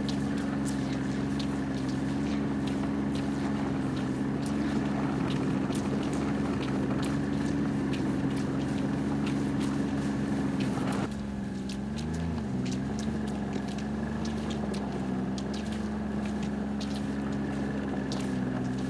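A motor running steadily with an even hum, dipping slightly in level about eleven seconds in and wavering briefly in pitch just after; faint scattered clicks over it.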